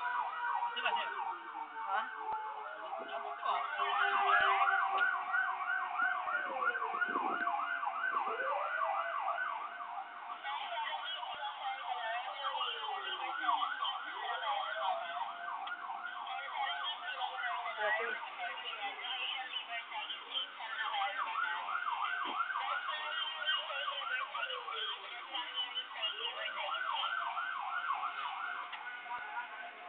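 Emergency sirens of a fire response convoy sounding together: a fast yelping siren at about five pulses a second over a slower wail that climbs, holds and falls away roughly every four seconds.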